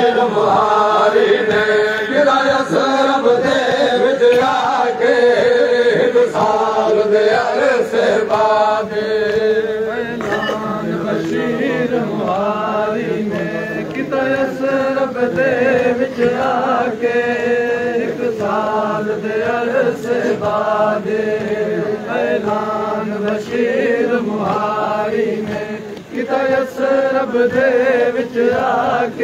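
Men's voices chanting a noha, a Shia mourning lament, as a sung refrain repeated phrase after phrase without a break.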